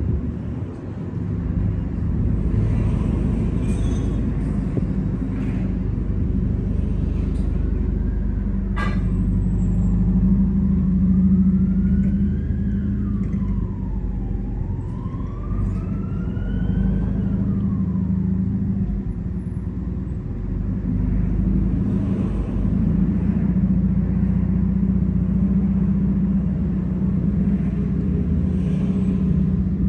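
Steady low mechanical rumble. In the middle, a distant siren wails slowly up and down for about ten seconds. There is one sharp click shortly before the siren starts.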